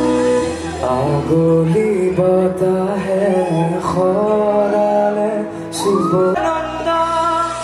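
A man singing into a microphone over amplified music, with acoustic guitar and sustained accompanying chords.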